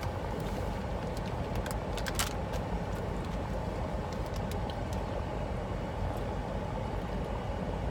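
Steady low hum of a car's cabin, with a few light clicks about two seconds in.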